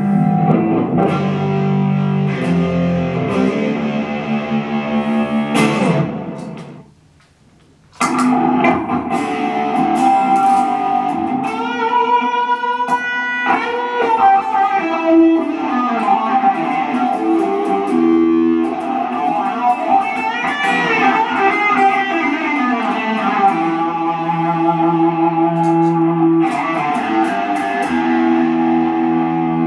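Electric guitar played through an amp: a Fender Stratocaster into a Fender Champion 100, playing chords and single-note lines. The playing stops for about a second and a half around a quarter of the way in, then resumes, with a few bent, wavering notes near the middle.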